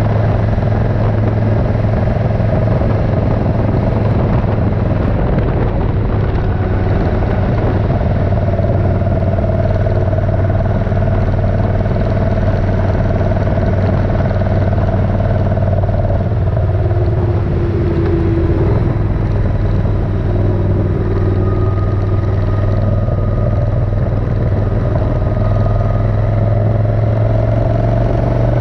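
Suzuki Intruder 1400's V-twin engine running steadily under way. Its note eases a little past halfway, then picks up again.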